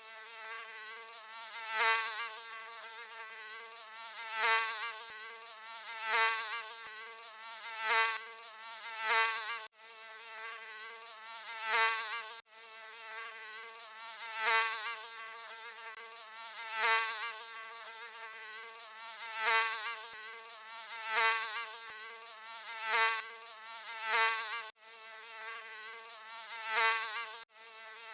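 Mosquito buzzing: a high, thin whine with a slightly wavering pitch, swelling louder every second or two and dropping out for an instant a few times where the recording is looped.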